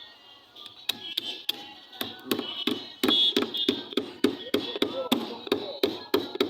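Hammer blows in quick succession, about three a second, starting about a second in.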